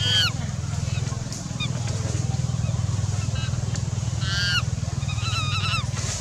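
Short, high-pitched wavering animal calls: one at the very start, another about four seconds in, then a quick run of them, over a steady low hum.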